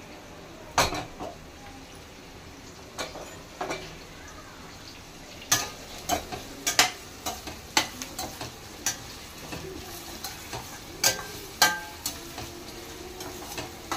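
Steel spatula scraping and knocking against a stainless steel kadai as chopped onions and green chillies are stirred and fried, over a faint steady sizzle. A loud clank comes just under a second in as the pan is set on the gas burner, and the spatula knocks come irregularly, thickest in the second half.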